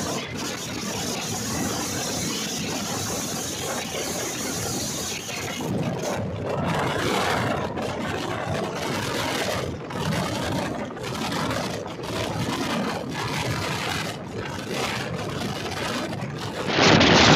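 A passenger train running along the track: a steady rushing rumble of wheels on rails. It grows suddenly much louder right at the end.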